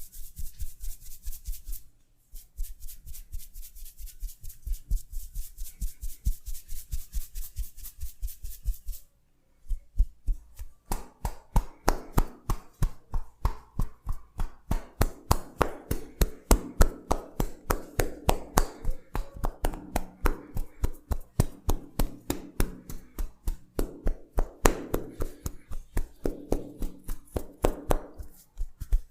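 Rapid, even hand strikes of a champi head massage, about five a second, pausing briefly about two and nine seconds in. From about eleven seconds in the strikes take on a fuller, lower sound.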